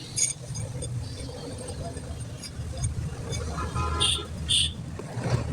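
Steady low rumble of a vehicle engine and passing road traffic, with a few short, sharp sounds: one just after the start and two about four seconds in.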